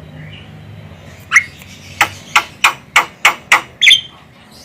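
Javan myna calling: a single squawky note, then a rapid run of six sharp, harsh notes about three a second, closed by another squawk.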